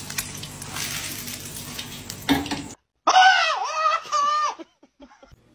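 Egg frying in a pan, a steady sizzle with fine crackle that cuts off suddenly about two and a half seconds in. Then a loud, drawn-out, wavering vocal cry in two parts.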